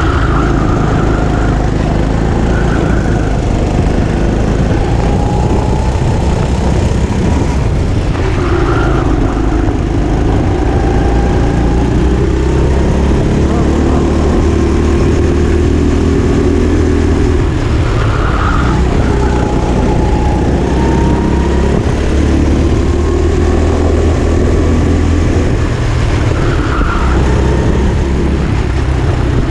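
Go-kart engine running at racing speed, heard from the driver's seat, its pitch rising and falling again and again as the kart speeds up along the straights and slows into the corners.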